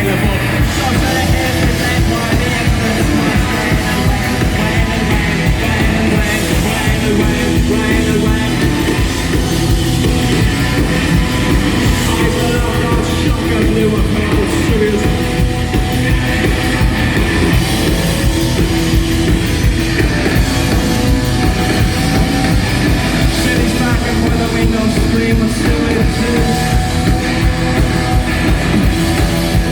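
A post-punk rock band playing loud and live, with guitars, bass and a steady driving drumbeat.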